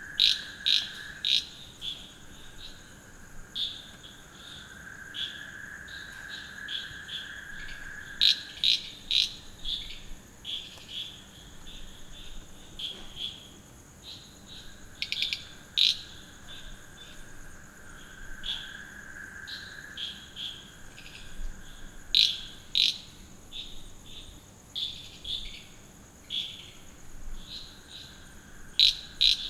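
Crickets and frogs calling in a night chorus after rain. A steady high insect trill runs throughout, short sharp calls repeat at irregular intervals, and a lower trill comes and goes every few seconds.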